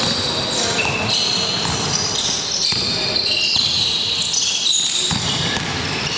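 Basketball game in a large echoing sports hall: sneakers squeaking again and again on the court floor, a ball bouncing, and players' voices.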